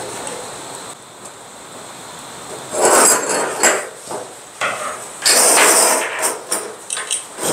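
Handling noise of a metal scuba backplate and its nylon webbing harness being moved about on a table: two loud bursts of clattering and rustling about three and five seconds in.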